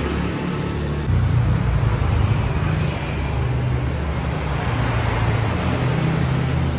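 Road traffic: motorbike and car engines passing, a steady hum that grows louder about a second in.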